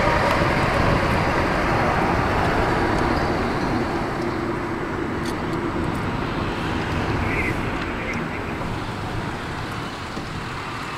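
Steady road and wind noise inside a moving car: a constant rush of tyres and air that gradually gets quieter over the seconds.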